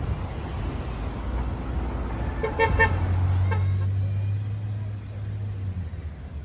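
A passing car's horn gives a couple of quick short toots about two and a half seconds in, a faint third one just after, honking in support of sign-wavers at the roadside. The car's engine hums low as it goes by, over steady street traffic.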